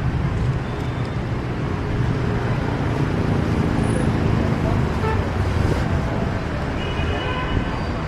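Busy street traffic of motorbikes and cars, a steady din of engines. A horn sounds briefly near the end.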